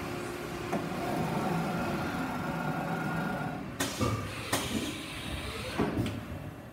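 Steady mechanical hum with a faint whine from a Haas Servo 300 bar feeder and its CNC lathe running, with several sharp metallic knocks in the second half.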